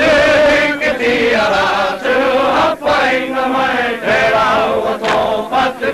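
Maori performers chanting together in the Maori language, many voices in unison in short, rhythmic phrases.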